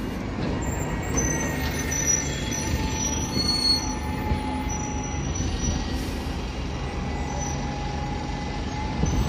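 Diesel single-decker buses running at a kerbside stop, one pulling away, with a steady low engine rumble. Thin high-pitched squealing tones ride over it.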